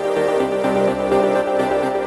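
Electronic background music with held synth chords over a fast, steady pulse; the harmony shifts about half a second in.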